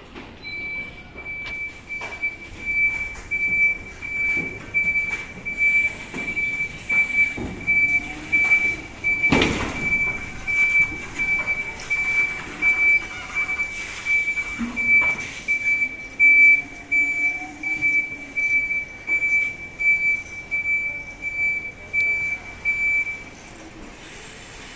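Electric forklift's reversing alarm beeping over and over in one high tone as it backs up, stopping near the end. A loud clunk about nine seconds in, with scattered lighter knocks.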